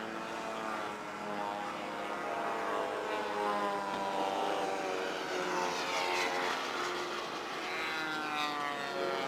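Radio-controlled model airplanes' propeller engines droning overhead, the pitch sliding up and then down as they fly past, with one falling sweep about six seconds in.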